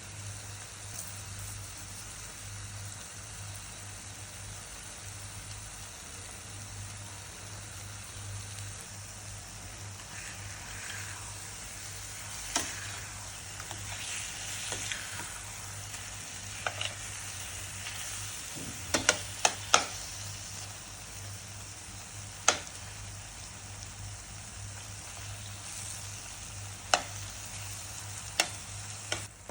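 Egg and eggplant omelette frying in a pan with a steady sizzle; from about halfway in, a utensil knocks and scrapes against the pan in a dozen or so sharp clicks.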